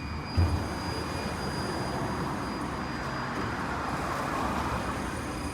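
Vityaz-M tram running, with a steady high-pitched whistle over the rumble and rolling noise of the ride; a second, lower whistle fades out about a second in. A single thump comes about half a second in.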